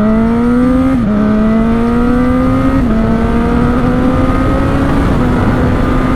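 Honda CB1000R's inline-four engine accelerating hard and shifting up through the gears. Its pitch drops briefly three times, about one, three and five seconds in, and climbs again after each; the shifts are quick, clutchless ones from the factory quick shifter.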